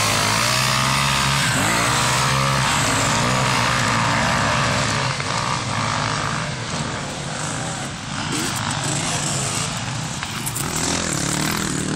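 Motocross bikes racing on a dirt track, their engines revving up and down. The nearest bike is loudest in the first few seconds as it passes, and other bikes rise and fall further off.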